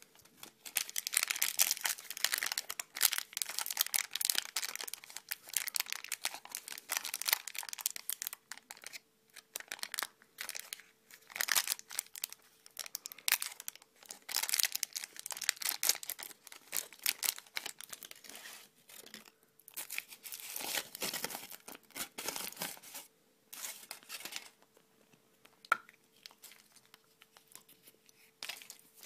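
Crinkling and tearing of packaging being handled and pulled open by hands, in irregular crackly bursts with short pauses between them.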